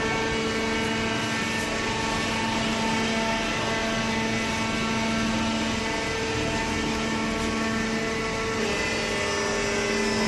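Automatic hydraulic baler for scrap paper and cardboard running: a steady mechanical hum and whine, its pitch shifting slightly about nine seconds in.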